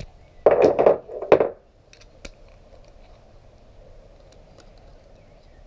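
Hand tools and a motorcycle fork leg being handled: a short loud clatter of knocks and rattles in the first second and a half, then a couple of light clicks.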